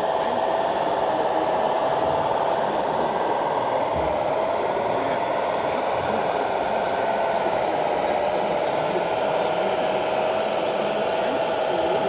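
A small electric motor whining steadily, its pitch wavering slightly up and down, over steady background noise.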